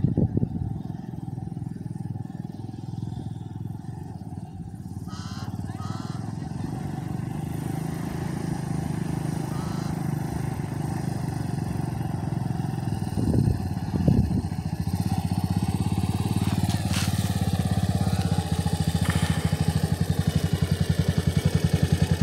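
Yamaha dirt bike's engine running steadily with a regular pulse, growing gradually louder as the bike comes up close.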